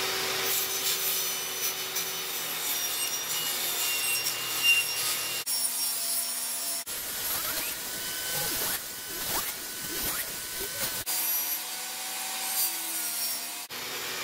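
Table saw running and cutting through dried egg cartons packed with morel spore mix, with a steady motor whine under the noise of the blade in the material. The sound breaks off and changes abruptly several times.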